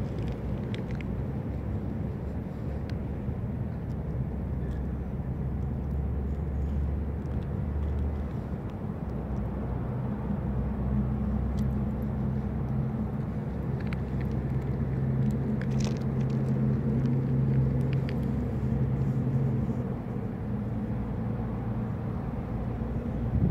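A steady, low engine rumble with a hum whose pitch lines swell and fade, and a few faint clicks over it.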